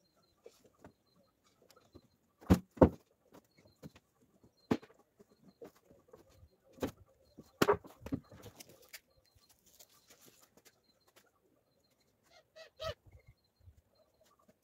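Scattered knocks and thuds of a heavy Ural motorcycle being wheeled across and off a wooden trailer bed. The loudest are a sharp pair of knocks a few seconds in, with more around the middle and one near the end.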